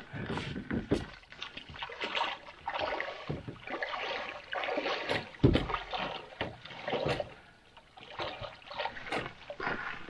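Gear being loaded into a canoe at the water's edge: a person wading in shallow water with small splashes, and packs knocking and rustling against the hull, with a sharper knock about halfway through.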